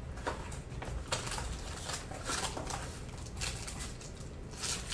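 Cardboard and plastic rustling and tapping in short scattered bursts as a Topps Tier One trading card box is opened and its cards are handled.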